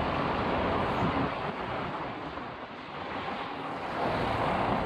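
Wind rushing over a phone microphone, mixed with street traffic noise around a bus stop. A steady, noisy rush that eases a little in the middle.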